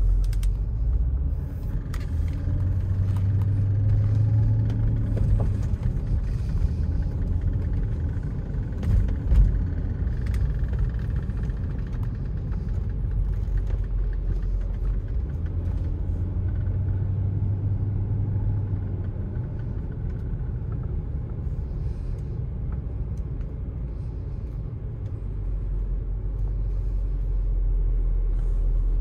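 Porsche Cayenne Turbo's twin-turbo V8 with its factory sports exhaust, heard from inside the cabin with road rumble, the engine note rising twice as the car accelerates. A brief thump about nine seconds in, and near the end the sound settles into a low steady hum as the car comes to a stop.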